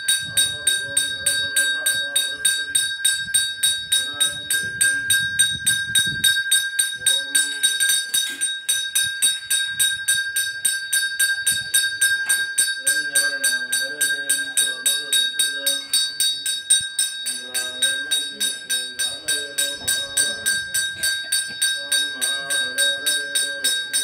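Temple bell rung rapidly and steadily during the puja, about four strikes a second with a continuous ringing tone.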